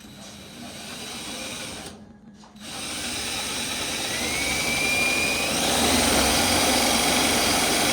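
Power drill running in two bursts, a short one and then a longer one of about six seconds with a thin whine near the middle, as it tries to bore through the car's sheet-metal body panel. The bit isn't cutting well: a drill that doesn't really drill.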